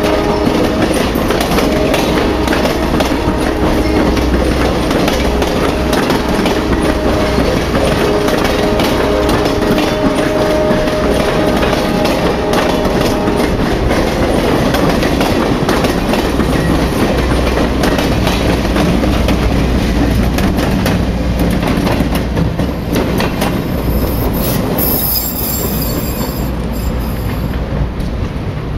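Passenger train cars rolling past at close range: a steady rumble of steel wheels with rapid clicking over the rail joints and some held squealing tones from the wheels in the first half. The sound drops away near the end as the last car passes and the train moves off.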